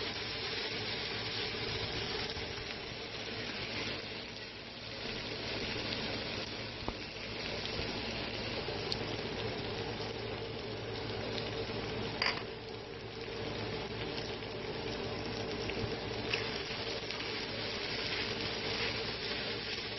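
Chicken and vegetables sizzling in a nonstick frying pan as they are stir-fried with a wooden spatula, with a steady frying hiss and occasional clicks of the spatula on the pan, the sharpest about twelve seconds in.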